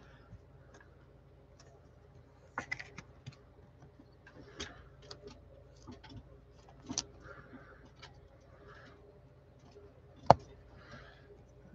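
Scattered light clicks, taps and rustles of trading cards being handled by gloved hands, with one sharp click about ten seconds in the loudest. A faint steady hum runs underneath.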